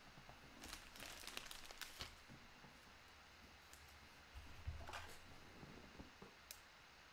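Faint crinkling and tearing of a foil trading-card pack wrapper in short crackly bursts during the first two seconds, then a soft thump about halfway through and a light click near the end.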